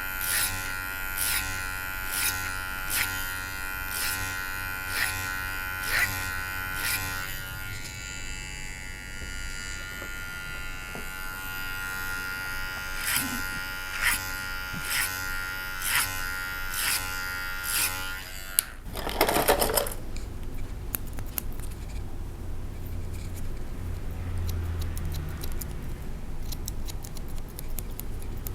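Electric hair clipper running with a steady hum, cutting short hair with regular sharp strokes about once a second. It stops about two-thirds of the way through, followed by a brief louder rustle and then quieter fine snips that sound like scissors.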